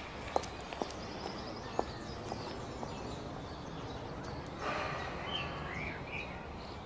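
Quiet outdoor ambience: a steady background hiss with a few faint clicks in the first two seconds and a short burst of bird chirps about five seconds in.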